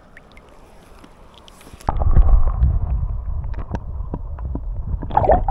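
Faint riverside ambience, then suddenly about two seconds in the muffled underwater sound of the river through a submerged camera microphone: a loud low rumble with scattered clicks and knocks.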